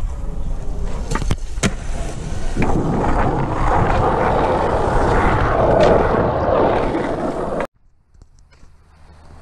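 Two sharp clacks about a second in, then skateboard wheels rolling loudly on concrete for several seconds, which cuts off suddenly near the end.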